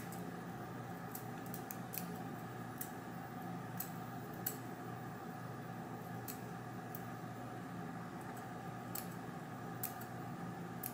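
Blow dryer running steadily, fairly quiet, while lace spray is dried to set the wig's lace. Scattered sharp clicks sound irregularly over it, about one a second.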